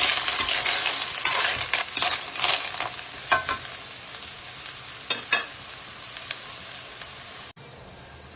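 Clams in their shells being stir-fried in a metal pan: the shells scrape and clatter against the pan over a steady sizzle. The stirring eases off after about three seconds, leaving the sizzle and a few clicks from the shells. Near the end the sound cuts suddenly to a quieter steady hiss.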